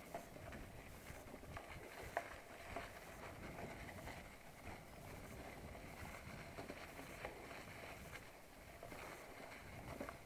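Wheels rolling over dry fallen leaves on a dirt forest track: a steady rustle with scattered small clicks and rattles.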